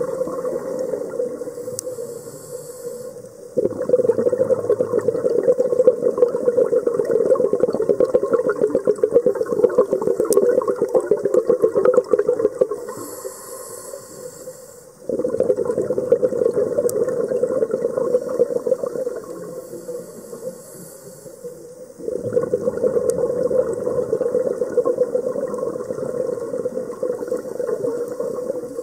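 A scuba diver breathing through a regulator underwater: three long exhalations, each a several-second rush of bubbles, with a quieter hiss of inhalation between them.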